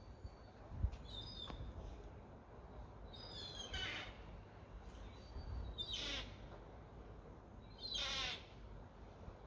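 Gulls calling: three loud, harsh calls a couple of seconds apart, each dropping a little in pitch, with short thin high calls between them, over a low steady rumble. A brief low bump about a second in.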